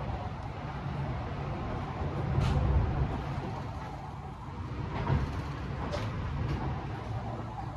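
JR West 221 series electric train running at speed, heard from inside the passenger car: a steady low rumble of wheels on rails that swells twice, with a few sharp clicks.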